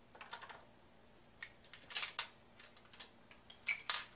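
Light, irregular clicks and clinks of a spoon against a spice container, with two louder knocks about two seconds in and near the end, as a teaspoon of turmeric is measured out.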